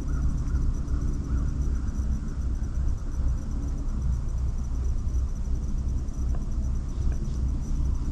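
A steady low rumble, with a few faint short chirps at a middle pitch now and then.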